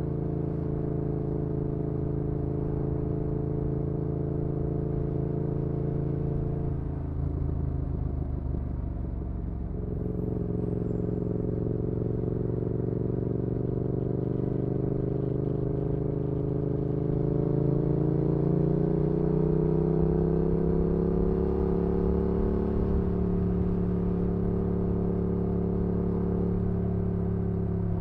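Yamaha XSR700's 689 cc parallel-twin engine through an aftermarket IXRACE MK2 exhaust, heard onboard while cruising. It eases off briefly about a quarter of the way in, then climbs slowly in pitch under steady throttle and holds a steady cruise toward the end.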